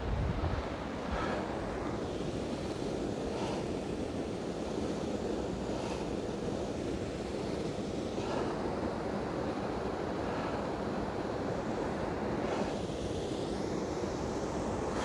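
Steady rushing of a river running high after heavy rain, with wind buffeting the microphone.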